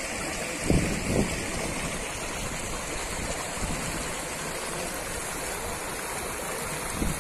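River water rushing steadily over rocks. Two brief louder bumps stand out about a second in.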